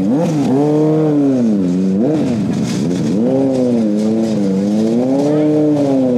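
Kawasaki ZX-25R's 250 cc inline-four engine being revved up and down several times while the bike rolls slowly away, its pitch rising and falling again and again.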